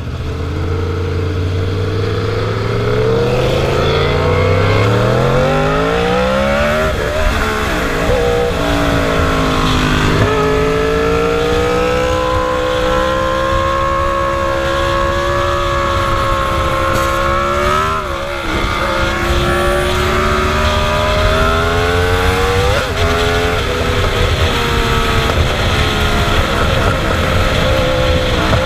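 Sport motorcycle engine accelerating hard through the gears: its pitch climbs and drops back at several upshifts, then holds high and steady for a while, with wind rushing over the onboard microphone.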